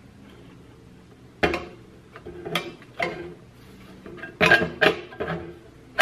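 Sheet-metal burner housing of a Dyna-Glo kerosene heater clanking and rattling against the heater body as it is fitted down over the burner. A string of sharp metal knocks starts about a second and a half in, with the loudest pair near the end.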